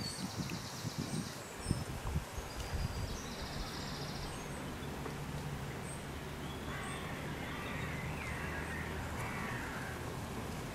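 Lakeside birdsong: a fast high trill twice in the first four seconds, then harsher calls in the second half, over a low steady background hum, with a brief low rumble of wind on the microphone at the start.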